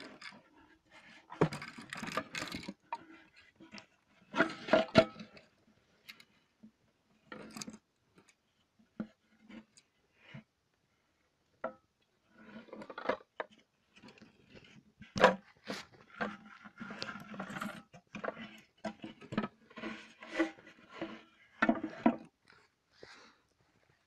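Hard homemade fiberglass vacuum-cleaner parts being handled: irregular knocks, clicks and scrapes as the pieces are touched, turned and shifted, with one louder knock a little past the middle.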